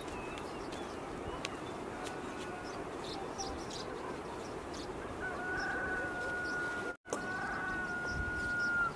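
Rooster crowing: two long, held calls in the second half, over a steady outdoor background with scattered small bird chirps.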